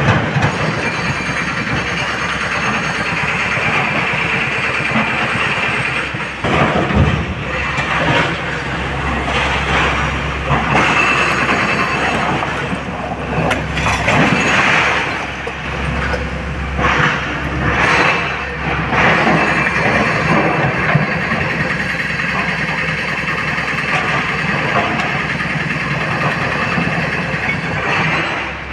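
SANY crawler excavator working a pile of blasted rock: its diesel engine runs steadily under hydraulic load while stone grinds and clatters in the bucket, with a few sharper knocks of rock on steel.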